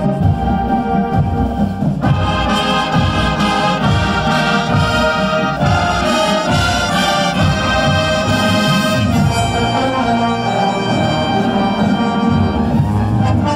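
A high school marching band playing at full strength, trumpets and trombones leading; the brass grows fuller and brighter about two seconds in.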